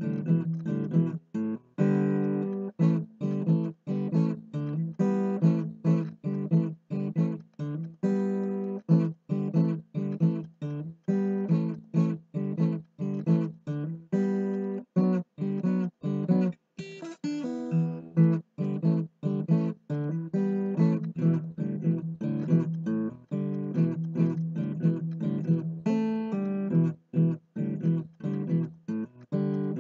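Acoustic guitar music: strummed and picked chords, each striking sharply and then fading.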